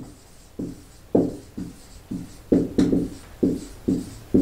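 Background music: a light melody of short, evenly spaced notes, sparse at first and filling in from about two and a half seconds in.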